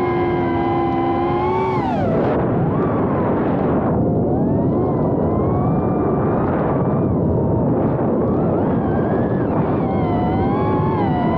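Motors and propellers of a 3-inch FPV quadcopter whining at a steady pitch, then dropping sharply about two seconds in as the throttle comes off. They waver at a lower pitch over a rushing noise and climb again near the end.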